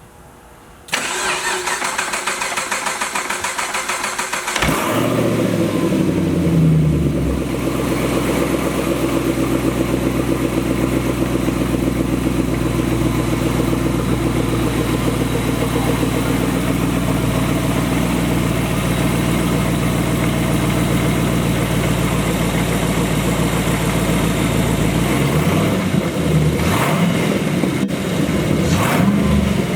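Supercharged 6.2-litre LSA V8 from a 2012 Camaro ZL1 cranking on the starter for a few seconds, then catching, flaring up and settling into a steady idle. Near the end it is revved briefly twice.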